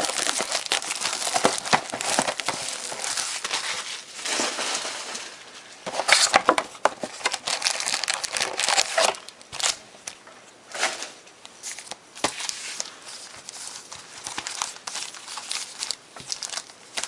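Plastic wrapping and foil trading-card packs crinkling and tearing as a new box of cards is opened and its packs are handled. The rustling is densest and loudest over the first half, then thins out into lighter scattered crinkles.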